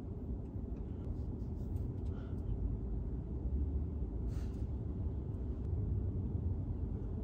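Electric car's air conditioning fan running steadily inside the parked cabin, an even low hum with a faint steady tone.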